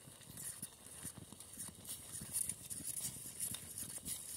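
Soft, irregular clicks and knocks from a small wood fire burning in a metal box stove and a spoon stirring thick sauce in a metal pot set on it.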